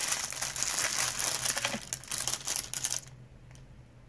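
Plastic packaging crinkling as it is handled, a dense crackle that stops suddenly about three seconds in.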